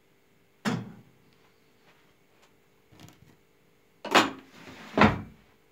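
Three short thuds or knocks, about a second in and twice near the end, over a faint steady hum.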